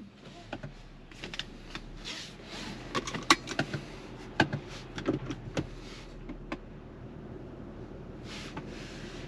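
Scattered light clicks and knocks, about a dozen over six seconds, from small handling inside a car's cabin, over a faint steady low hum. A soft hiss comes near the end.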